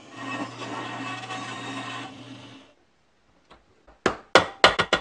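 Bandsaw running and cutting a block of wood, a steady motor hum under the blade noise, stopping about two and a half seconds in. Near the end, a quick run of sharp knocks as a wooden pulley is tapped onto an electric motor's shaft with a wooden mallet.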